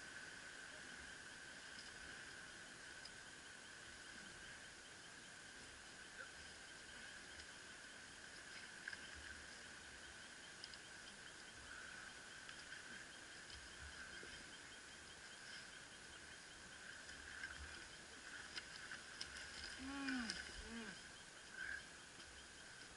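Faint, steady insect chirring with a fine pulse, with a few short, falling low calls or grunts and some light clicks near the end.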